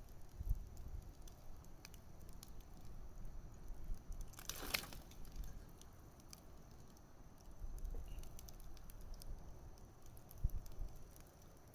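Wood campfire burning, crackling with scattered sharp pops and a brief louder hissing burst about four and a half seconds in.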